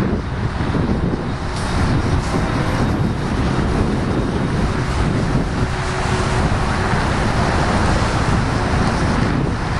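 Steady rushing noise of wind buffeting the microphone, mixed with the rumble of two freight trains rolling past and of cars and a truck passing on the highway.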